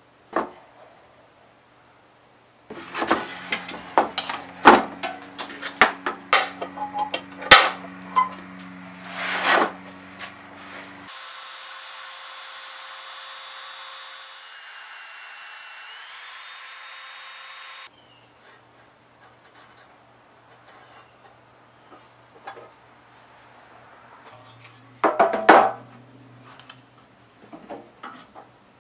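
Tools scraping, rasping and knocking against a steel guitar body as its inside welds are cleaned up, in irregular bursts with sharp clicks. About a third of the way in, the scraping gives way to several seconds of steady hiss, then returns more sparsely with one loud burst near the end.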